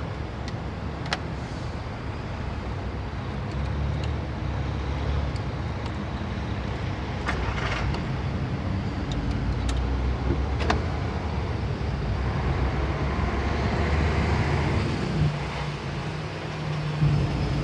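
Road vehicle engines running in a slow traffic queue: a steady low rumble, with a few light clicks and a deeper engine note that grows louder about three-quarters of the way through.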